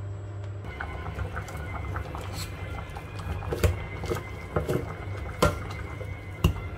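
A metal ladle stirring in a stainless steel pot of hot water and clinking against it, with a few sharp knocks in the second half, amid crinkling of a plastic seasoning packet.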